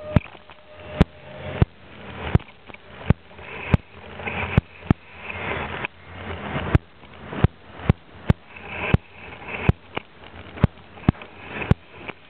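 Long freight train of autorack cars rolling past at close range: a steady rumble and hiss, broken by sharp clicks and knocks about once or twice a second.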